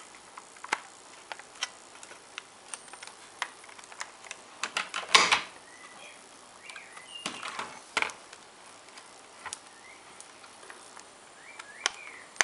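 Small plastic clicks, taps and creaks from a Kato HO-scale SD70MAC model locomotive's plastic body shell being pressed onto its chassis and clipped into place. There are scattered irregular clicks, with the loudest knock about five seconds in.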